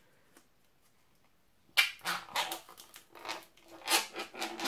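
Plastic wrapper of a beef salami stick being torn open. After a quiet start it crackles and rips in a quick series of sharp tears from about two seconds in, the loudest right at the first tear.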